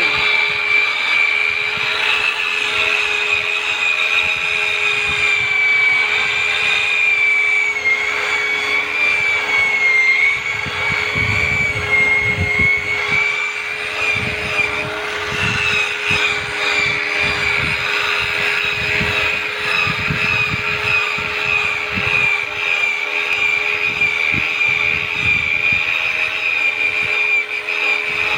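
Electric rotary polisher running steadily as it buffs wax on a boat hull, a high motor whine that dips slightly in pitch about a third of the way in, over a steady lower hum.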